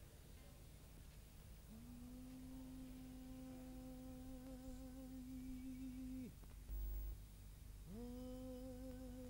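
A voice humming a long held note with a slight waver, which ends in a short downward slide; after a brief pause a second held note slides in near the end. A short low thud falls between the two notes.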